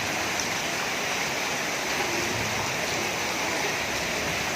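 Heavy rain and running floodwater: a steady, even rush of water with no breaks.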